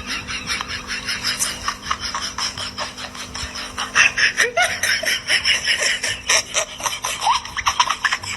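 People laughing hard in rapid bursts, with a few higher squeals, over a faint steady hum.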